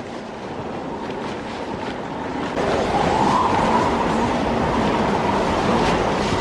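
Steady rushing noise with a faint engine-like hum, getting louder about two and a half seconds in: a vehicle engine running.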